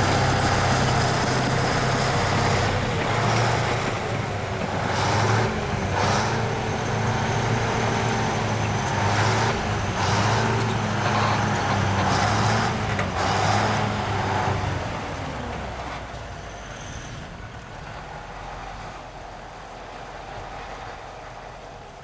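Engine of a tracked all-terrain carrier running at a steady pitch under load while towing an SUV, with repeated short bursts of harsher noise. From about two-thirds of the way through, the sound fades away as the vehicles move off.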